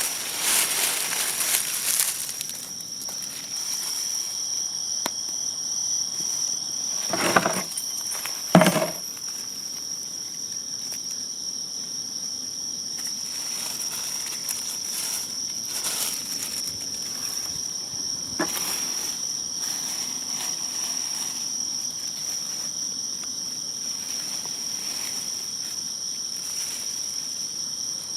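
Insects, likely crickets, chirring steadily on one high pitch throughout. A few brief scraping or rustling noises cut in, the loudest two about seven and eight and a half seconds in.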